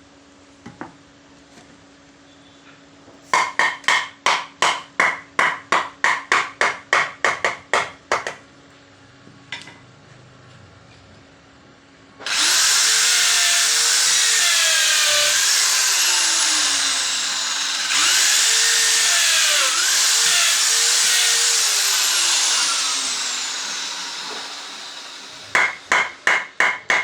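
A hammer striking wood in a quick run of about twenty blows at roughly four a second. Then an electric power tool cuts wood in two long passes, the second trailing off. A short burst of hammer blows comes near the end.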